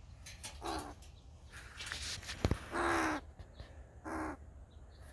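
Fledgling crow cawing three times, with the middle call the longest and loudest. A single sharp click comes just before the middle call.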